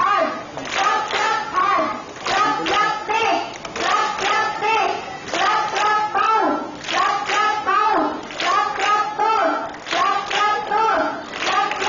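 A large group of children chanting in unison, with sharp hand claps in a steady rhythm.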